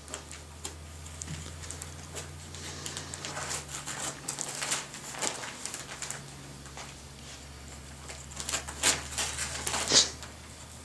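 Wrapping paper crinkling and tearing as a black Labrador retriever chews and rips it open, in irregular crackles and rustles, with the loudest rips near the end as the present comes free.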